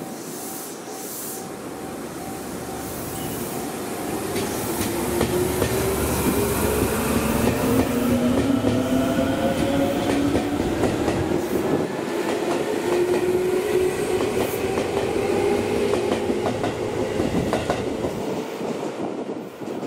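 Tobu 10000-series electric commuter train pulling out of the station: its traction motors whine up steadily in pitch as it gathers speed, and the wheels clatter over the rail joints, growing louder as the cars go by and falling away near the end as the last car leaves.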